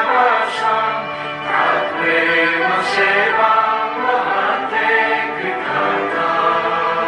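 Choir of voices singing with musical accompaniment.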